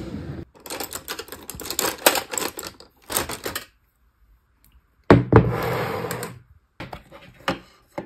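Hands rummaging through a drawer and a metal tin of paintbrushes, with quick clicks and clatters of brushes and tin. About five seconds in comes a louder sliding rumble lasting a second or so, followed by a few more clicks.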